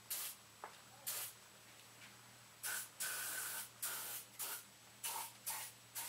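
WD-40 aerosol can spraying onto a rifle in about ten short hissing bursts, one a little longer about three seconds in.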